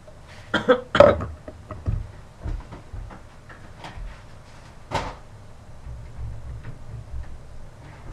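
Knocks and bumps of things being handled and set down on a table: a quick cluster of knocks about a second in, a few softer thuds after, and one more sharp knock near five seconds.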